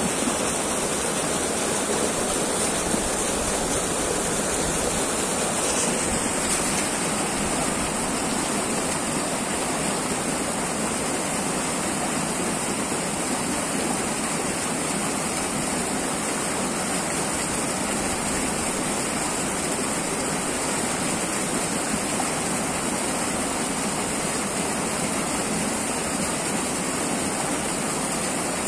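Fast, muddy stream rushing through rapids: a steady, unbroken wash of turbulent water.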